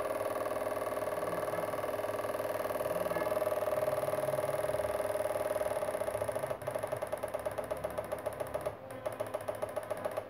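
Homemade electric-fishing inverter and its step-up transformer buzzing steadily while driving two heater tubes as a test load. About two-thirds of the way through, the buzz turns into a rapid pulsing, as the tubes dim and flicker.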